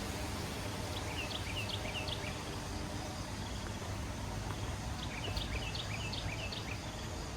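A small bird singing two short phrases of quick, high chirping notes, about a second in and again about five seconds in, over a steady background hiss of outdoor ambience.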